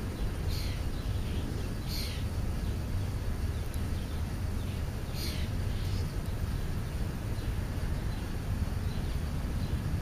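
Four short, high bird chirps, each falling quickly in pitch: two about a second and a half apart near the start, two more close together about five seconds in. Under them runs a steady low rumble.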